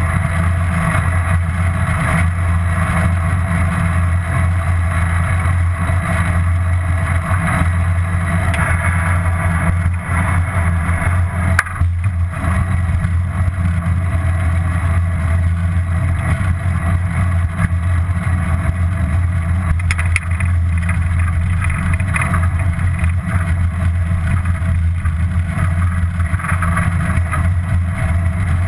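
Steady rumble of riding on a bicycle, picked up by a bike-mounted GoPro: wind and tyre noise running on without a break.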